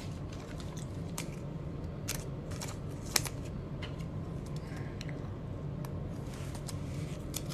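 Trading cards and a clear plastic card holder being handled on a table: scattered light clicks and taps, the sharpest about three seconds in, over a steady low hum.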